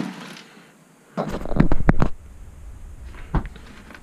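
Handling knocks and clicks of a screwdriver working on small 3D-printer extruder parts: a tight cluster of knocks with a low thud about a second in, then a single sharp click later.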